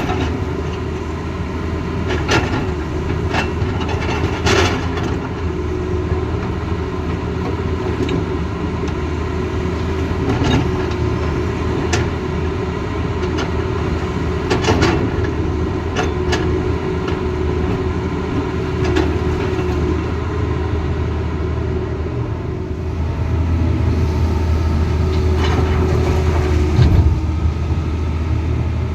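Tata Hitachi Zaxis excavator working: a steady diesel engine note with a hydraulic whine, and sharp clanks and knocks every few seconds, most of them in the first half.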